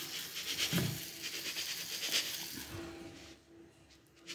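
Mixed finch seed poured from a plastic tub into a plastic cage feeder: a steady rustling hiss of falling seed that fades out near the end.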